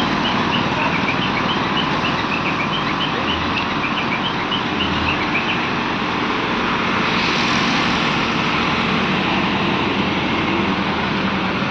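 Diesel engines of ACE hydra pick-and-carry cranes running, a steady drone that brightens about seven seconds in; short high chirps sound over the first five seconds.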